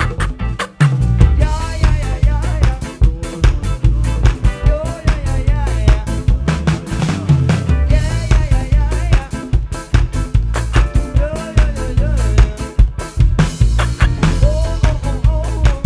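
A live band jamming: a drum kit beat with kick and rimshot-snare hits over a deep bass line, with a wavering lead melody on top and a ska-like groove. The band drops out briefly under a second in, then comes back in full.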